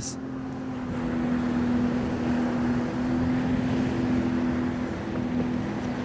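A boat motor running steadily with a low, even hum that shifts slightly in pitch a few times, over a soft hiss of wind and moving water.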